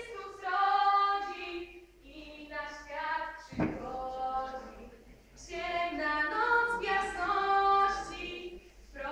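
A group of young voices singing a Polish Christmas carol (kolęda) in three held phrases with short breaks between them. A single thump sounds about a third of the way in.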